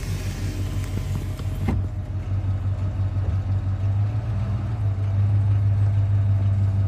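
Truck engine running steadily, heard from inside the cab as a low, even hum that grows a little louder about four seconds in.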